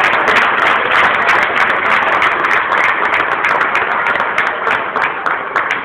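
Audience applauding: dense, steady clapping from many hands, thinning a little near the end.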